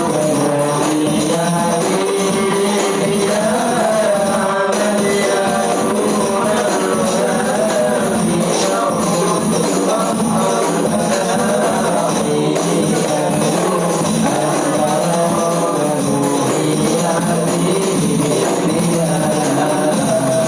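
Rebana frame drums played in a dense, steady rhythm under group singing.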